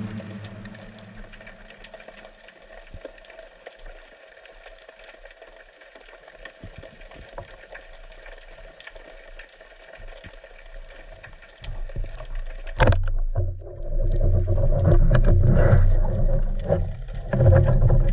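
Underwater: faint crackling and clicking, then about two-thirds through a sharp crack of a speargun shot followed by loud churning, thrashing water as a speared European sea bass struggles and is hauled up to the surface.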